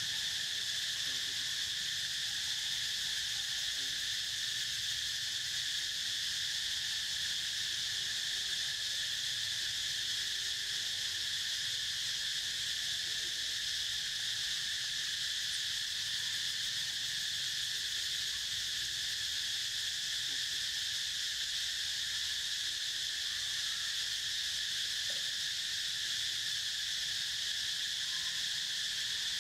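Steady chorus of insects, a shrill high drone that holds constant without a break.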